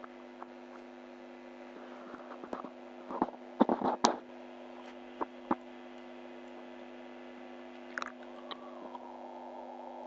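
Steady low electrical hum and hiss from a computer microphone, with scattered small clicks and a few brief rustling or mouth noises, the sharpest click about four seconds in.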